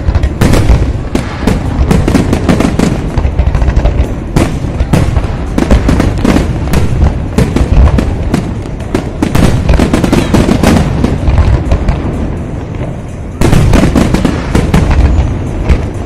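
Fireworks display in full barrage: a rapid, dense run of overlapping bangs from aerial shells bursting. It eases off briefly about twelve seconds in, then comes back loud.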